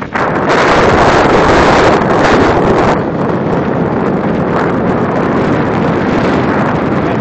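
Wind buffeting the microphone of a handheld camera on a moving motor scooter, over the scooter's running and road noise. It is loudest for about the first three seconds, then steadier.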